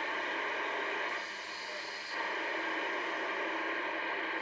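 CB radio receiver hissing with open-band static between transmissions. It dips briefly in level a little after a second in.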